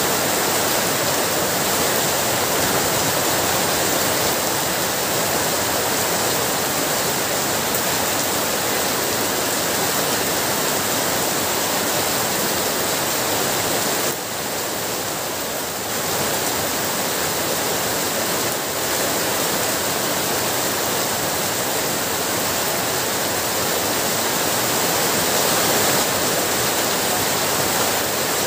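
Heavy rain falling at night: a dense, steady hiss of rain that eases slightly for a couple of seconds about halfway through.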